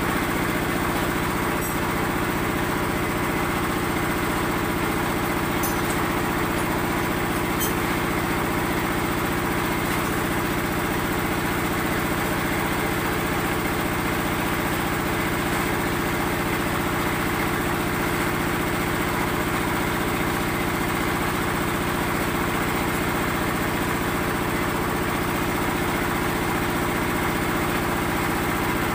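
Small engine running steadily at one even speed, powering a concrete block-making machine, with a few faint ticks in the first several seconds.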